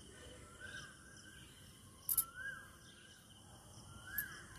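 A bird calling in the background: short whistled notes that rise and fall, repeated about every second and a half. Two short sharp clicks, about two seconds in and near the end, are the loudest sounds.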